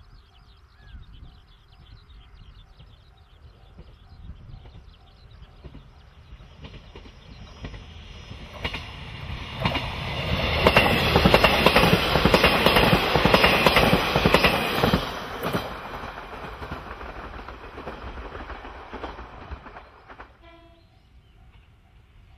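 KiHa 40/48 diesel railcar train approaching, passing close by and receding: its rumble swells to a peak of wheels clattering over rail joints about halfway through, then fades and cuts off near the end.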